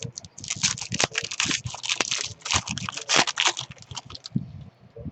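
Trading card packs being handled: crinkling foil wrappers and quick clicks and rustles of cards being flipped, stopping about four seconds in.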